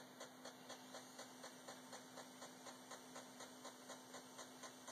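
Apple 5.25-inch floppy drive formatting a blank disk: faint, regular ticking about four times a second over a steady low hum.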